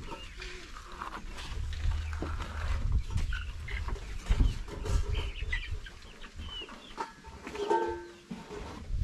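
Chickens clucking now and then over a steady low rumble.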